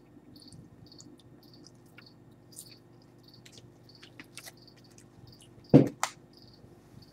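Clear plastic bag of dried silkworm pupae being handled, giving soft crinkles and clicks, with one louder knock about six seconds in. Faint high chirps repeat every half second or so over a steady low hum.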